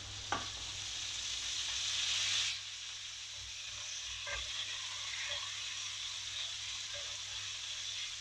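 Floured pheasant thighs frying in bacon fat in a pan: a steady sizzle, louder for the first two and a half seconds, then dropping suddenly to a quieter level. A few faint clicks sound through it.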